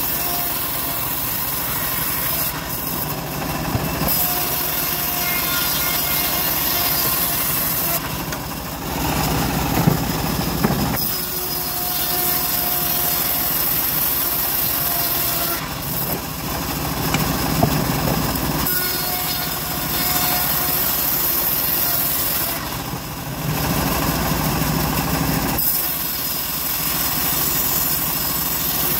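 Homemade band-saw mill running steadily while ripping teak planks lengthwise. Three times, for a few seconds each, the high hiss drops away and a lower rumble comes up.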